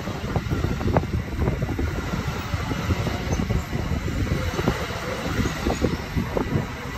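NJ Transit bilevel passenger coaches rolling past at close range: a steady rumble of steel wheels on rail, broken by frequent irregular clicks and knocks from the wheels over the track.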